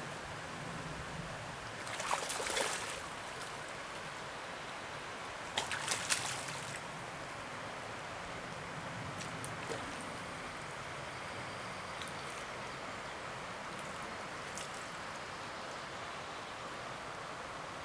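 Steady rush of river water, broken by two short bursts of splashing at the surface, about two seconds in and again around six seconds.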